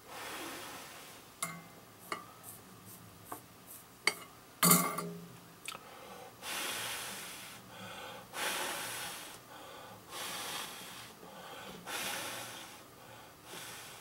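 A person breathing close to the microphone, slow and even, a breath roughly every two seconds in the second half. Over it come a few small sharp clicks in the first half, and one louder click with a short ring a little before the middle.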